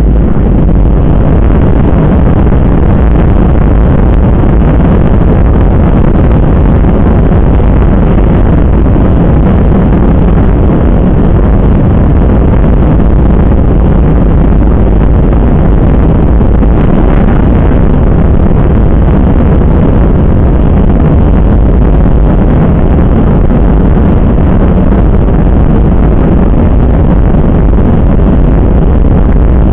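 Loud, steady engine and air noise inside a jet airliner's cabin, with no change in pitch or level.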